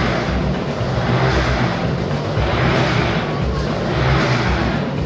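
Motorcycle engine running hard inside a steel-mesh globe of death. Its note swells and fades about four times as the bike loops around the sphere.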